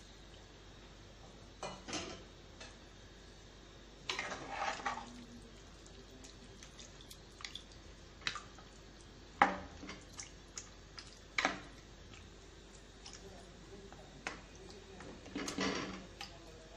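A spoon stirring chicken in a watery masala in a clay pot, knocking and scraping against the pot's side: scattered single clinks with two longer runs of scraping, a faint hum between.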